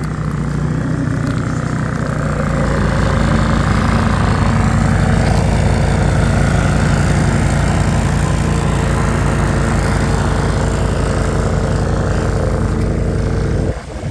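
A vehicle engine running steadily, a continuous low hum with a noisy wash above it, dipping briefly near the end.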